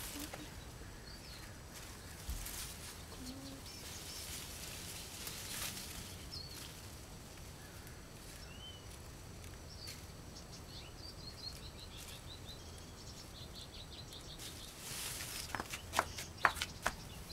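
Quiet garden ambience with faint songbird chirps, including a quick series of short repeated notes about two-thirds of the way in. Near the end, rustling and light clicks as someone moves through the raspberry canes.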